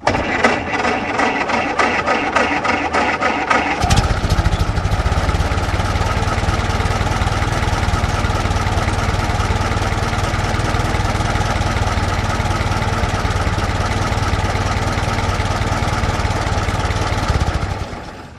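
Old car engine being cranked by its starter with an even rhythmic chug for about four seconds, then catching and running steadily before dying away near the end.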